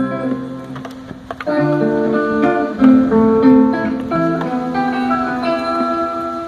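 Instrumental music, a plucked guitar melody of held notes over lower accompanying notes. It thins out briefly about a second in, then picks up again.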